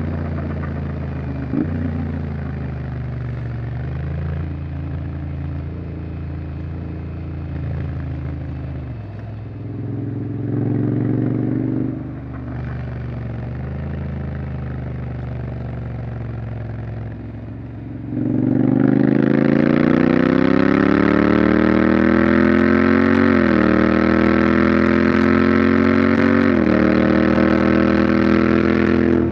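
Honda X-ADV 750's parallel-twin engine running at a steady, moderate pace, then from about two-thirds of the way through accelerating hard with a rising pitch. The pitch drops briefly twice as it shifts up, and the engine stays loud to the end.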